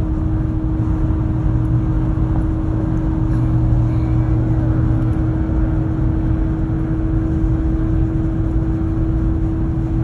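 Steady road and engine drone heard from inside a car's cabin cruising at highway speed, with a constant low hum underneath.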